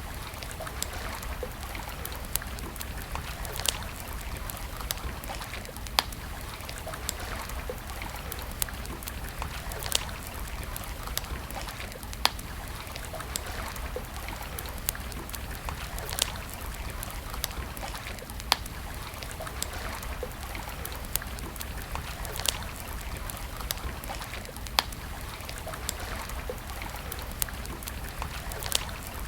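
Wood campfire crackling, with sharp pops every second or two over the steady rush of a stream.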